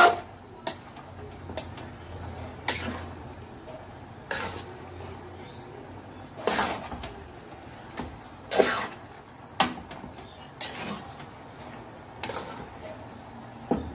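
A metal turner clanking and scraping against a metal pan as cooked spaghetti is tossed and stirred: about a dozen sharp, irregular knocks over a faint steady background noise.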